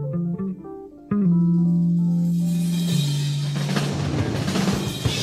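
Live rock band music. Keyboard notes come first, then about a second in a loud held chord over a sustained bass note, with drums and a rising wash of noise building behind it.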